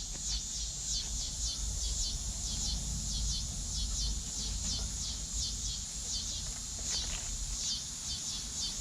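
Rapid, high chirps from small animals repeat steadily at about four a second, each a quick downward sweep, over a low rumble.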